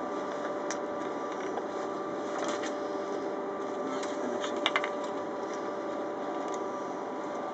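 Steady low hum with a few light clicks and taps from work in the engine bay of a Nissan twin-cam engine that is switched off, including a quick double click about two thirds of the way through.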